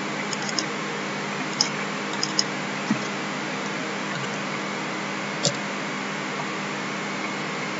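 A few sparse computer mouse clicks and keyboard keystrokes, mostly in the first three seconds with one more about halfway through, over a steady hiss and faint hum from the microphone.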